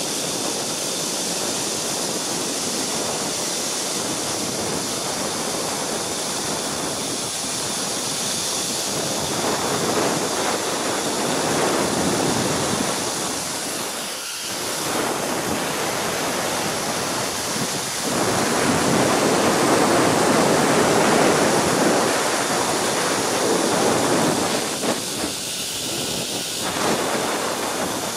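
Steady rush of wind over the microphone of a rider speeding along a zipline, the noise swelling louder twice, the second time strongest.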